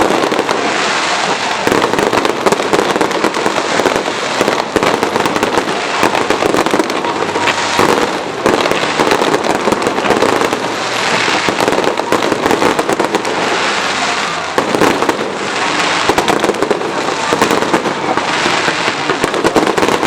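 Aerial fireworks display: a continuous barrage of bangs and crackling, with louder swells of bursts every few seconds.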